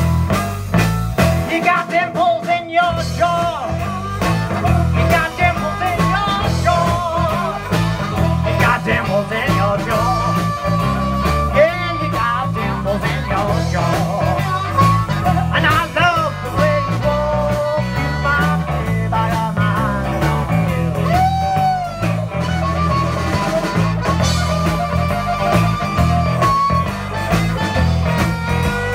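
Live blues band playing an instrumental break: a harmonica solo with bending notes over electric guitars and drums keeping a steady rhythm.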